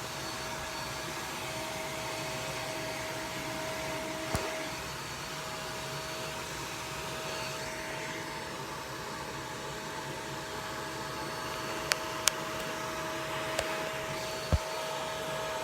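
Vacuum cleaner running steadily with a constant whine. A few brief clicks sound over it, mostly in the last few seconds.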